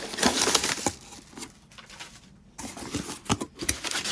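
Cardboard shipping box being opened by hand: a blade scraping through the packing tape for about the first second, then scattered knocks and rustles of cardboard as the flaps are pushed back and a padded envelope is pulled out.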